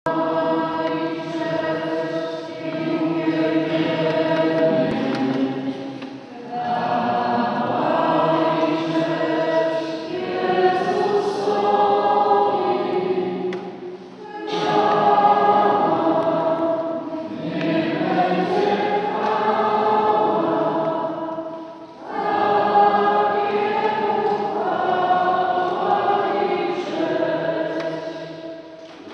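A group of voices singing a sacred song together inside a church, in long held phrases with a short pause between them about every seven or eight seconds.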